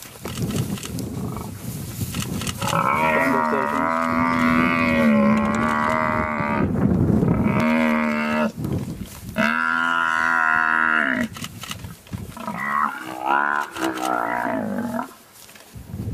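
African buffalo bellowing in distress while lions bring it down: four long, drawn-out bawls, the last one wavering, with scuffling between them.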